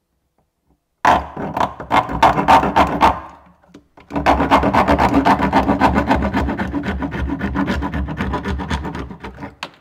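Large serrated knife sawing through the plastic cockpit rim of a kayak in quick rasping strokes: a short burst about a second in, a brief pause, then a longer steady run of strokes that stops just before the end.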